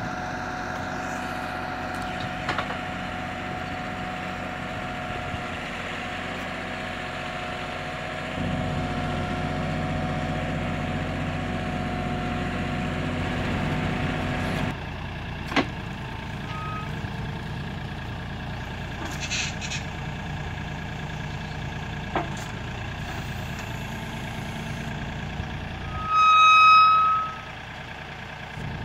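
Kioti NX6010 diesel tractor engine running steadily, its tone shifting between clips. Near the end there is a single loud electronic beep lasting about a second.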